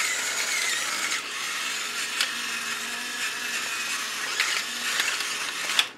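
Battery-powered salt and pepper mill running, its small motor whirring steadily as it grinds seasoning onto the steak; it stops just before the end.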